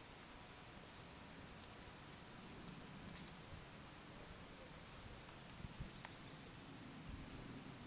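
Faint outdoor ambience with high, thin chirping calls that come and go every second or two, and a few soft clicks.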